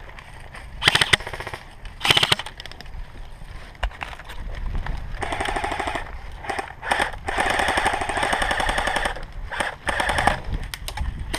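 Airsoft electric rifles firing on full auto in about five bursts of rapid clicking fire. The longest burst, near the middle, runs about two seconds, and two short ones come early on.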